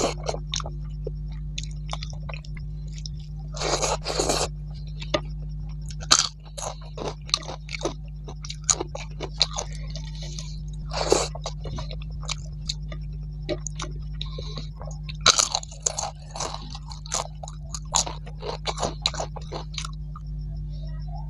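Close-up chewing with many sharp, irregular crunches as a person eats rice, vegetables and crisp fried papad by hand. There are longer bouts of crunching about four, eleven and fifteen seconds in. A steady low hum runs underneath.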